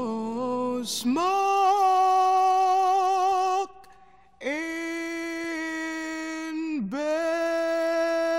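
Background music: a slow song made of long held notes, one after another, with a brief pause about four seconds in.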